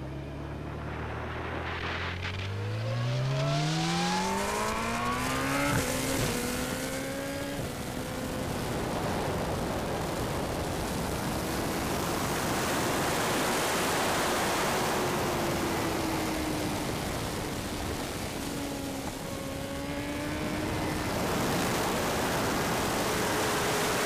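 Honda CBR1000RR-R SP Fireblade superbike's inline-four engine accelerating, its pitch climbing steadily for the first five seconds or so, then held high at speed under a loud wind rush on the fork-mounted camera. Near the end the engine note dips briefly and rises again.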